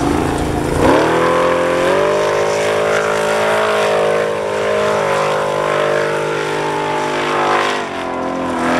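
Formula Offroad hill-climb buggy's engine at full throttle as the car claws up a steep sand slope. The revs shoot up about a second in and hold high and steady, then fall away near the end.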